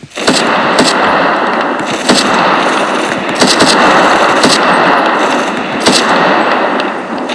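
Gunfire that starts suddenly: a continuous rattle of rapid fire with louder single shots cracking through at irregular moments, easing off slightly near the end.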